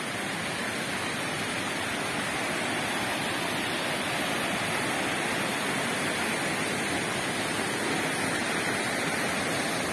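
Steady rush of the hot spring's running water, growing slightly louder.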